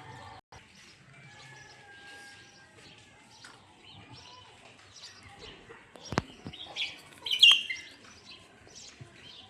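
Small birds chirping on and off in the background. A single sharp click comes about six seconds in, and a louder burst of chirping follows a moment later.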